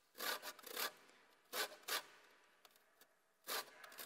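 Lemon zest being grated on the smallest holes of a box grater: about five short scraping strokes, two quick pairs and then a single stroke near the end.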